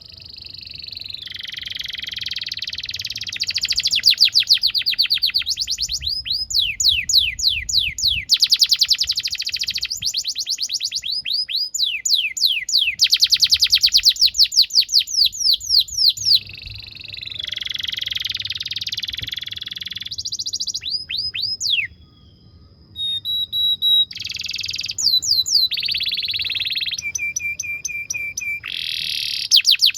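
Canary singing a long continuous song: rapid trills of repeated downward-sweeping notes, several a second, alternating with buzzy rolls and a few held steady tones, with a short pause about two-thirds of the way through.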